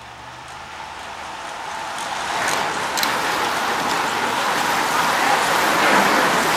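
A large bunch of road racing bicycles riding close past: the whirring hiss of many tyres and freewheels, swelling over the first few seconds and then holding loud, with a few sharp clicks in the middle.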